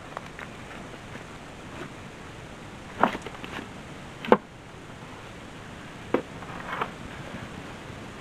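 A few scattered sharp clicks and snaps over a quiet outdoor background. The two loudest come about three and four seconds in, and two weaker ones follow a couple of seconds later.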